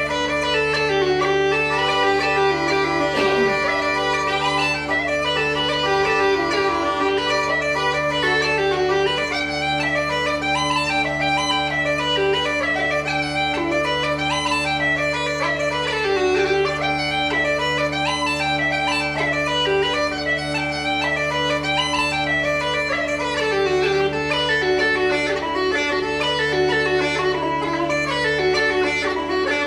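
Uilleann pipes playing a jig: the chanter's quick melody runs over steady, unbroken drones.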